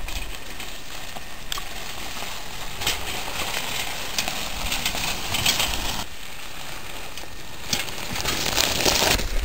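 Bicycle tyres rolling and crunching over a gravel road, a steady crackle of small clicks that grows a little louder after about six seconds, when the wheel comes close.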